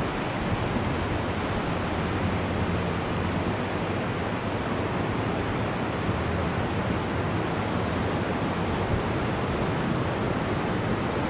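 Steady rushing noise of surf and wind, even throughout with no distinct events.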